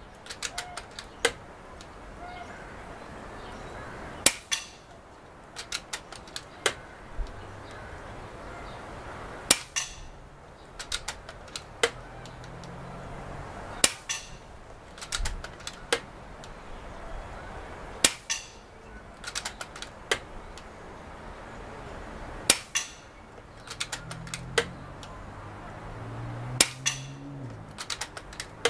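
FX Indy .22 PCP air rifle, set to 18 ft-lbs, firing shot after shot from its magazine: six or seven sharp cracks about four seconds apart. After each crack comes a short run of small clicks as the action is cycled to chamber the next pellet.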